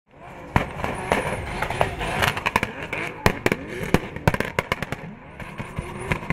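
Drift car's engine revving up and down as it slides sideways, under a noisy haze, with many sharp cracks scattered throughout.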